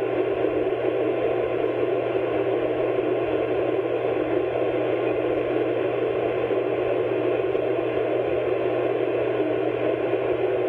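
Steady hiss with a low hum from the background noise of an old recording, unchanging throughout, with no other sound in it.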